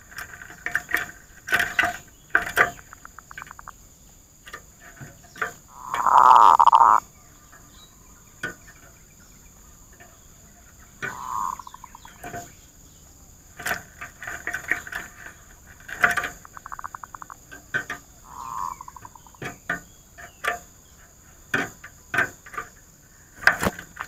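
Zebra doves calling: loud, short cooing phrases a few times, with quick rattling runs of staccato notes between them, and scattered light clicks.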